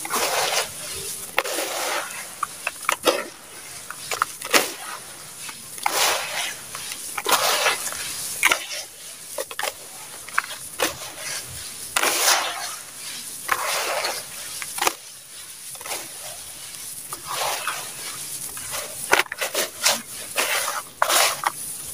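Hands squeezing and crumbling gritty red sand-cement in a plastic tub: uneven crunching bursts about once a second as lumps are crushed and dropped back into the mass.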